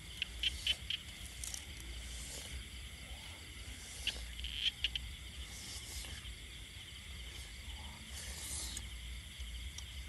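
Night insects chirring steadily. A few short clicks and rustles come through near the start and again about four seconds in, as hands handle and tear at roasted fish.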